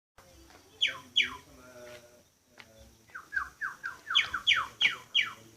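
A bird calling in sharp, downward-slurred whistled notes: two about a second in, then a run of shorter falling notes from about three seconds in that build into four louder, longer sweeps near the end.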